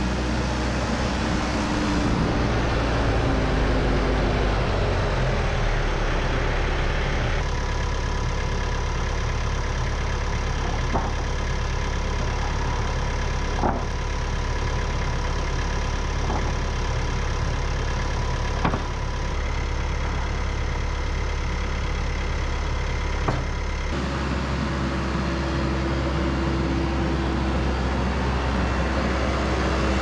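TYM 574 tractor's diesel engine running steadily, with a few sharp knocks of sawn lumber boards being handled.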